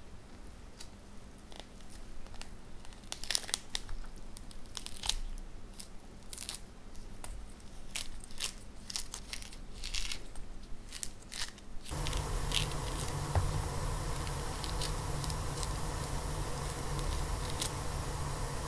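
Thick rind of a Hallabong (dekopon) citrus being torn off by hand: irregular sharp crackling tears and snaps of peel. About twelve seconds in, a steady background hiss comes in under the continued tearing.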